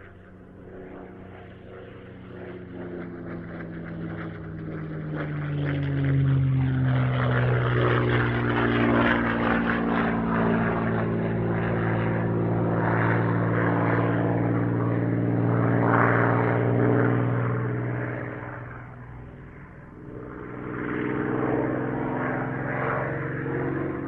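Propeller-driven aircraft flying past: its engine note swells up, holds loud with the pitch dropping as it passes, fades, then swells again near the end.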